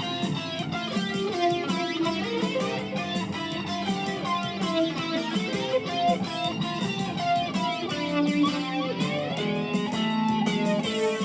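Electric guitar played through a BOSS eBand JS-10 amplifier, jamming along with a backing track from its session feature.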